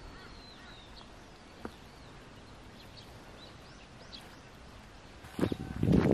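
Small birds chirping and whistling in short calls over a faint steady outdoor hiss. About five seconds in, louder crunching footsteps on dirt begin.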